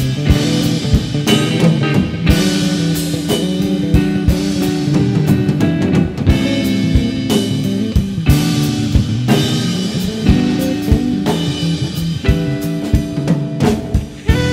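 An instrumental band playing: a drum kit with frequent drum and cymbal hits, an electric bass and a guitar. The drums drop out for a moment near the end.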